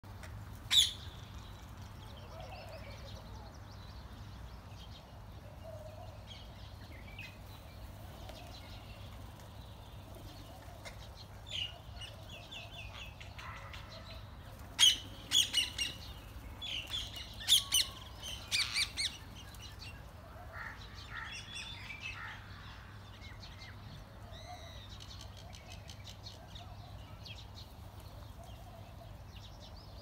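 Rose-ringed parakeets calling with shrill, high-pitched calls: one sharp loud call about a second in, another near the middle, then a quick run of loud calls for a few seconds past the halfway mark, with fainter calls after. A low steady hum lies underneath.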